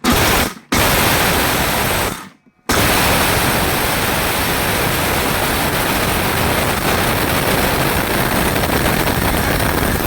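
Havells 800-watt mixer grinder grinding whole dried turmeric: the motor is pulsed on in two short bursts, then runs steadily from about three seconds in.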